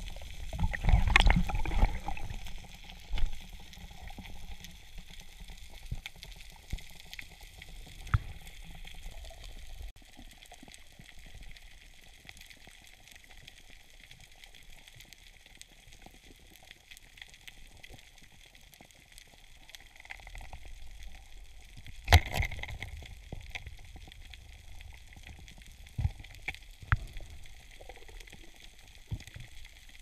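Underwater sound picked up by a camera in its housing on a reef at night: a low wash of water with scattered small clicks and crackles. Louder gushes of water come about a second in, briefly around 8 seconds, and again around 22 seconds.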